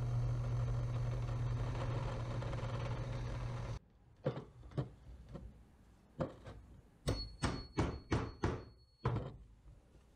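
Benchtop drill press motor running with a steady hum, which cuts off suddenly a little under four seconds in. After that come scattered sharp wooden knocks and clicks from handling a block of wood on a workbench, ending in a quick run of about six knocks.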